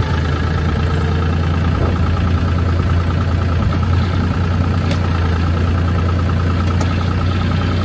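John Deere 5400 tractor's diesel engine running steadily while the front loader scoops a bucket of chicken litter.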